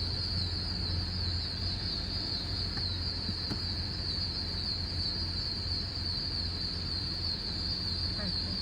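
Dense evening insect chorus of crickets or katydids: a continuous high-pitched trilling that stays even throughout, over a low steady hum.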